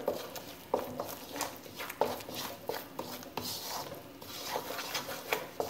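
Wooden roux spoon stirring and scraping a thick flour-and-oil roux in a metal wok, with irregular light knocks of the spoon against the pan.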